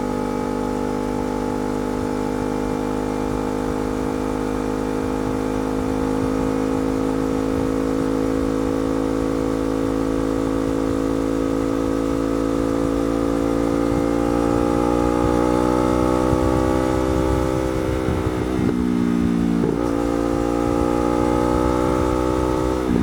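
Yamaha R3's 321 cc parallel-twin engine running under load through a slip-on exhaust on the move. Its note holds steady, then climbs slowly. It dips sharply and picks back up about three-quarters of the way through, and dips briefly again near the end.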